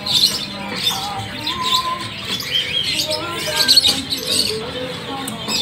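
Many caged songbirds chirping and twittering at once, a dense, overlapping mix of short high calls and trills.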